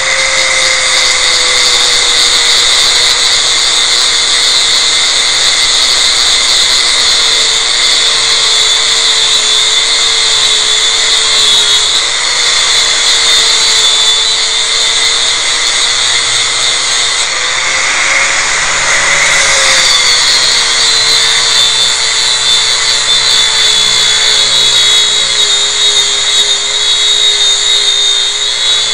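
Electric angle grinder with a high-grit flap disc grinding the old clear coat off a Pontiac Fiero's cast aluminium wheel: a steady motor whine over a hiss of abrasion, its pitch sagging slightly as the disc is pressed in. The pitch rises briefly about two-thirds of the way through when the pressure eases, then settles again.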